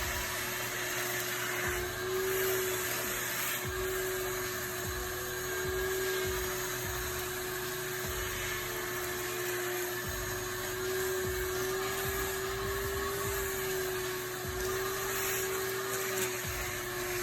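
Vacuum cleaner running steadily, a constant motor hum with a rushing hiss of air, vacuuming up rust under the car.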